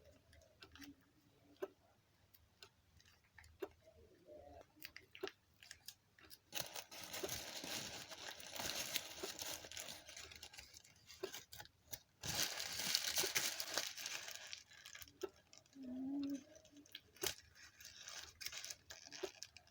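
A snack being handled and eaten: scattered small crunches and clicks, with two longer stretches of crinkling and crackling, about seven and twelve seconds in.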